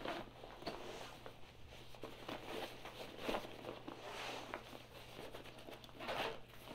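Fabric backpack being handled and its pockets worked: a run of short rustling and swishing noises from the pack's fabric and zippers, the loudest about six seconds in.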